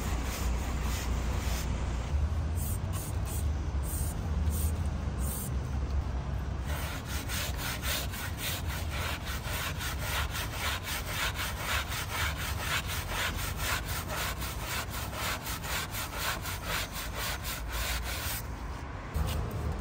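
Hand scrubbing on a motorcycle during a wash, in quick even strokes of about four a second over a steady low rumble. The scrubbing starts about a third of the way in and stops shortly before the end.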